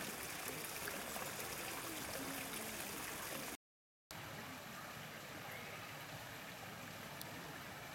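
Steady rush of running water, like a small stream or inflow feeding the pond. It cuts out completely for about half a second midway, then resumes slightly quieter.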